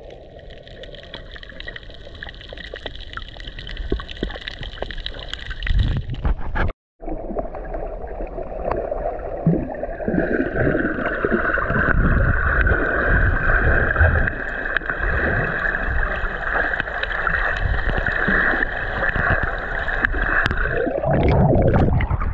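Muffled underwater sound from a camera held below the surface while snorkelling: water gurgling around the housing, with a steady hum of boat motors carried through the water. The sound cuts out briefly about seven seconds in, and near the end the camera breaks the surface with a splash.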